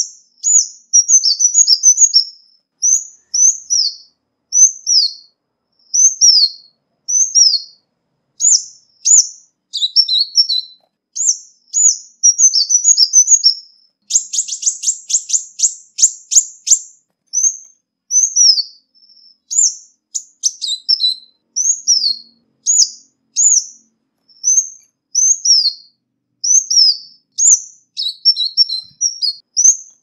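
Ruby-cheeked sunbird calling: short, high falling notes repeated about once a second, broken by a few quicker twittering phrases. Midway comes a rapid trill about three seconds long, and then the single notes return. A clean recording with no background noise.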